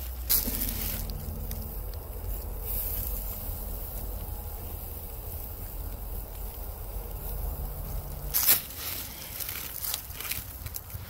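Small wood fire crackling in a Firebox folding steel stove, with a quail sizzling on the grate over it. A sharp clack just after the start, and a louder one about eight and a half seconds in as tongs turn the quail on the grate.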